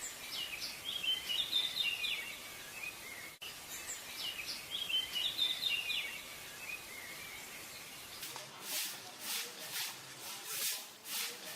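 A songbird singing a quick twittering phrase of chirps, twice, over a faint steady rush. Near the end come several brief swishing noises, about two a second.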